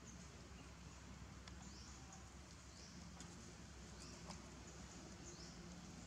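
Faint, short high-pitched rising chirps repeating about once a second over a steady low background hum, with a few light clicks.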